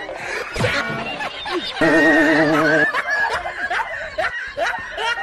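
High-pitched giggling and laughter in short repeated bursts. About two seconds in, a steady wavering tone is held for about a second.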